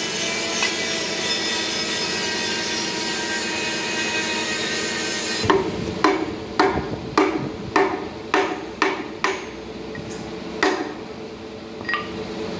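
Hand hammer striking steel parts of an open gearbox, knocking a roller and shaft into the housing. About ten sharp, ringing blows come roughly twice a second, starting about five seconds in, with a couple of slower blows near the end. Before the hammering there is a steady workshop hum and hiss.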